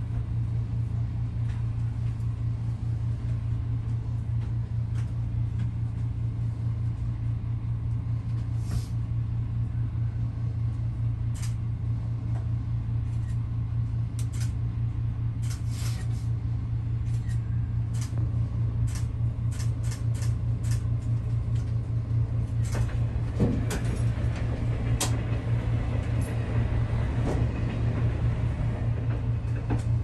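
Steady low hum of a diesel railcar engine, heard from inside the cab. A run of sharp clicks through the middle, densest about halfway in, as a KiHa 283 diesel express runs through the points on the adjacent track.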